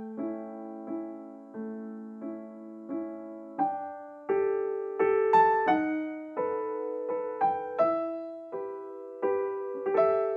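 Background music: slow, gentle piano, with single notes and chords struck every half second or so, each ringing out and fading.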